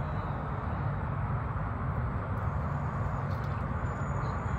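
Steady low outdoor background rumble with no distinct event, and a few faint ticks about three and a half seconds in.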